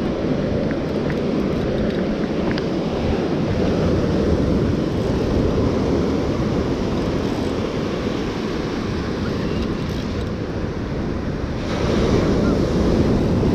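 Ocean surf breaking and washing over rocks, with wind buffeting the microphone; the wash grows louder about twelve seconds in.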